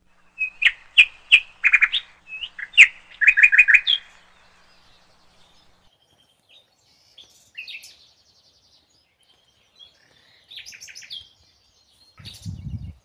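Small songbirds chirping: a loud run of short, quick chirps over the first four seconds, then fainter scattered calls. A brief low rumble comes near the end.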